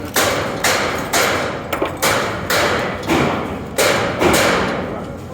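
A steady series of hard, sharp knocks, about two a second, each ringing off briefly, like repeated hammer blows.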